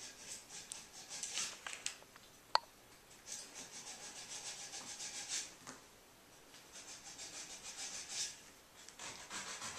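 Small hard objects being rubbed and slid about on a glass-topped table by a toddler's hands, in four scratchy bursts, with one sharp tap about two and a half seconds in.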